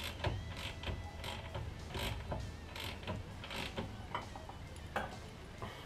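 Hand socket ratchet clicking in short, uneven strokes as a sway bar fastener on the suspension is worked loose, with light metal clinks.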